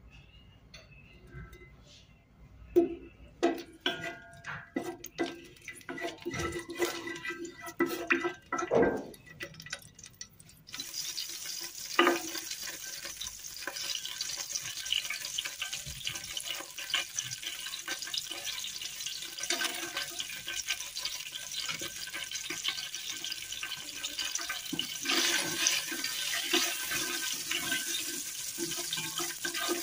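A run of knocks and clicks as oil and whole spices go into a nonstick pot, then, about eleven seconds in, a steady sizzling hiss starts as cinnamon stick, bay leaves, cardamom pods and cloves fry in the hot oil and ghee.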